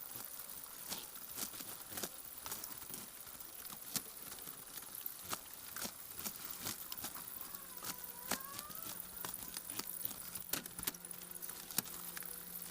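Live chickens shifting about in their shipping box: irregular light taps and scratches, with one short chirp about eight seconds in. A low steady hum comes in about seven seconds in.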